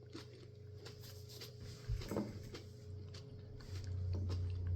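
Someone chewing a bite of fresh chili pepper pod, with soft wet mouth clicks about every half second and a brief louder mouth sound about two seconds in. A low hum comes in near the end.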